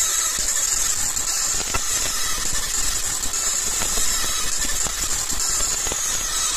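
Laser marking machine running as it engraves a steel rifle barrel: a steady hiss with a low hum, and a few faint ticks.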